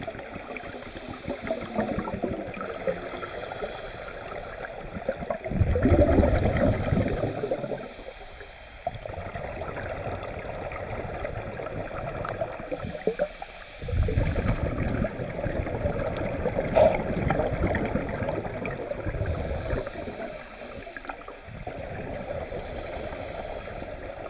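Scuba regulator breathing heard underwater. A high hiss comes on each inhale, and gurgling bursts of exhaled bubbles follow in a slow repeating cycle. The bubble bursts are loudest about six and fourteen seconds in.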